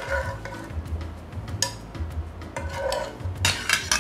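Metal fork clinking and scraping against a ceramic bowl while tossing spaghetti through a raw egg-yolk carbonara sauce. There is a sharp clink about one and a half seconds in and a few more near the end.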